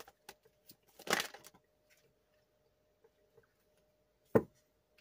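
A deck of tarot cards being shuffled by hand: soft card clicks and a short rustle of the deck about a second in, then quiet, then a single sharp tap near the end.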